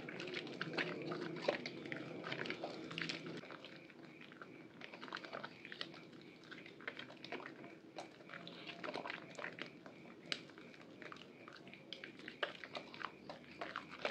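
Hands squeezing and rubbing a soaked bar of Purbasari Red Antibacterial soap into lather in water, making wet squelching and a dense crackle of many small clicks. The squelching is fuller for the first few seconds, then thins to mostly crackling foam.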